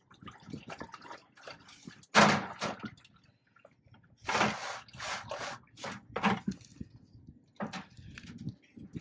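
Engine oil pouring and splashing out of the truck's oil pan drain hole into plastic buckets and a metal drain tray, in irregular splashes with quieter dripping between. The loudest splash comes suddenly about two seconds in. The buckets are also being knocked and shifted by hand.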